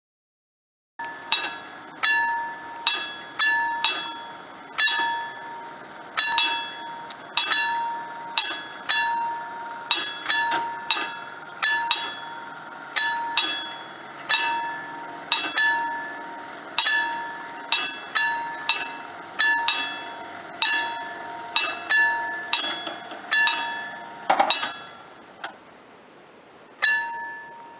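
Italian level-crossing warning bell striking about one and a half times a second at an uneven pace, each ring hanging on briefly, while the crossing's barriers come down. There is a louder clank about three-quarters of the way through.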